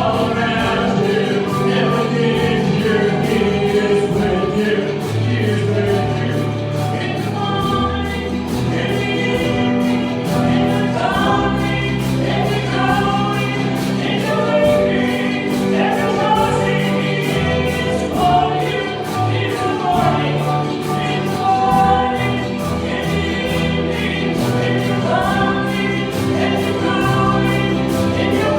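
Choir singing a church hymn with instrumental accompaniment, the voices moving over long held bass notes.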